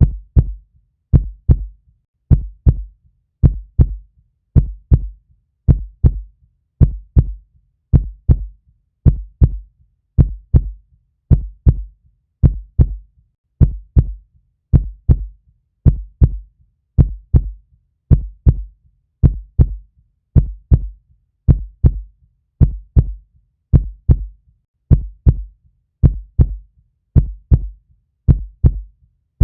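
Heartbeat, a steady lub-dub: two low thumps in quick succession, repeating evenly about once a second.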